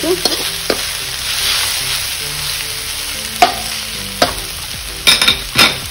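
Noodles and vegetables sizzling in a hot wok on high flame as they are stir-fried with a metal spatula. The spatula scrapes and knocks on the pan now and then, several times in quick succession near the end.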